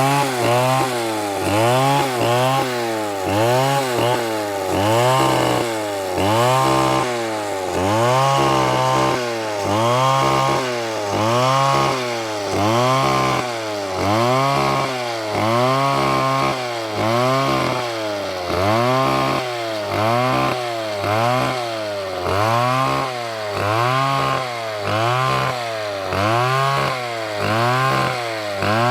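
Chainsaw engine running hard and revving up and down over and over, its pitch rising and falling about once a second, as it cuts through a dead palm trunk.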